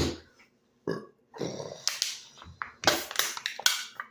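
Man burping in a string of short burps after gulping carbonated soda, the sharpest ones coming in the second half.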